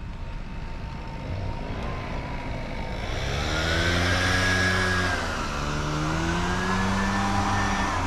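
A motor vehicle engine getting louder as it drives by, its pitch climbing, dropping about five seconds in, then climbing again, over tyre and road hiss.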